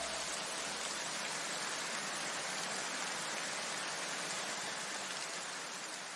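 A steady, soft hiss of noise, like rain, fading slowly in a gap between electronic music tracks.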